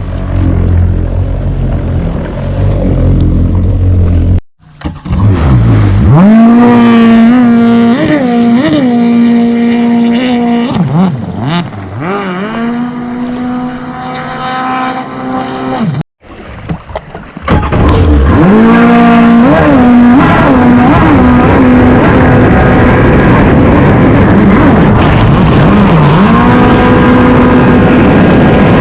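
Kommander GP1 stand-up jet ski's engine revving up and holding a steady high pitch under throttle, with a few brief dips as the throttle is eased and reopened. The sound drops out twice, about four and sixteen seconds in, and each time the pitch climbs back up from low.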